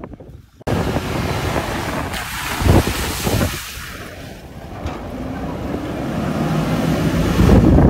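An off-road 4x4 running hard as its tyres churn through wet sand and mud, with heavy wind buffeting the microphone. The noise comes in suddenly under a second in, with two loud low thumps near the middle, and the engine grows louder toward the end.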